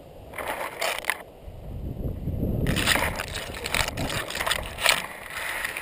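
Rustling and crunching from a player moving on foot in gear, coming in irregular bursts over a low rumble of wind and handling on the head-mounted camera's microphone.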